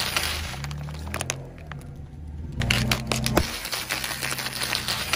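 Plastic soda bottle crackling and cracking as a car tyre rolls over it and crushes it, in two bursts of sharp clicks over a low rumble.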